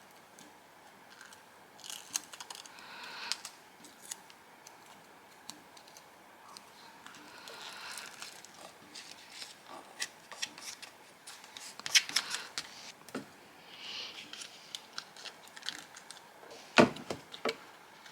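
Paper craft pieces being handled on a desk: intermittent rustling and crinkling with small clicks, and a sharper knock on the table near the end.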